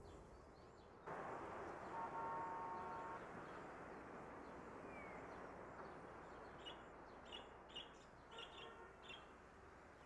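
Budgerigar chirping faintly: a handful of short, high chirps in the second half, over a steady background hiss. A brief steady tone sounds about two seconds in.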